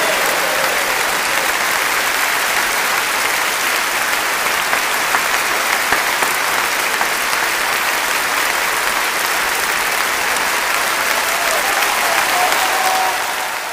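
Audience applauding steadily after a song, dying away near the end.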